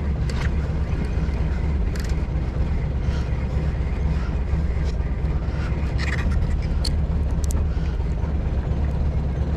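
A boat's engine running with a steady low hum, with a few faint scattered clicks from a fishing reel being cranked by hand.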